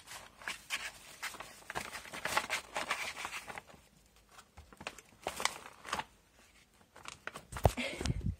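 Sheets of paper rustling and crinkling as a cat rolls and paws at them, in quick irregular bursts that thin out about halfway through. Two dull thumps near the end.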